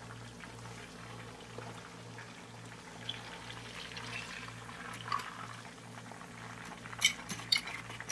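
Hot oil sizzling steadily under a whole chicken frying in a pan as it is turned over, with a few sharp clicks of metal tongs and a spatula against the pan about seven seconds in.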